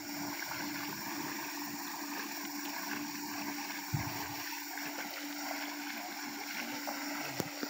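Rubber boots wading step by step through shin-deep muddy floodwater, sloshing and swishing with each stride, over a steady low hum. One short knock is heard about four seconds in.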